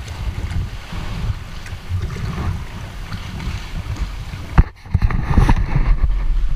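Wind noise on a GoPro's microphone over the splash and slosh of water around a paddled sea kayak. A sharp knock comes about four and a half seconds in, after which the wind noise is louder.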